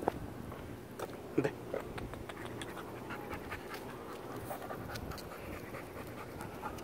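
Husky panting steadily, with a few light clicks and scuffs in the first two seconds.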